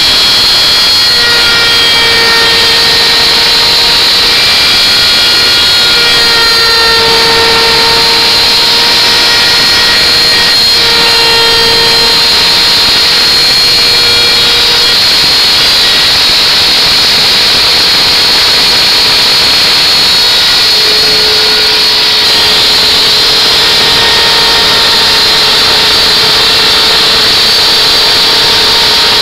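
Router motor running at high speed while its bit cuts a groove in wood: a loud, steady, high-pitched whine over a hiss. The whine's pitch shifts slightly a few times as the load on the bit changes.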